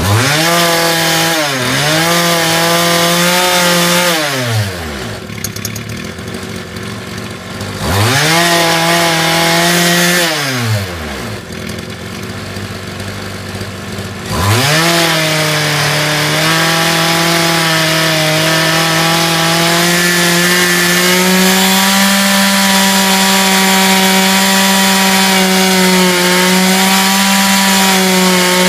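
Small 25cc two-stroke weed-eater engine in an RC boat, run with the propeller out of the water during carburetor tuning. It is revved up twice for about three seconds each and falls back to idle each time. About halfway through it is revved up again and held at high revs, its pitch creeping slowly higher for several seconds before it settles.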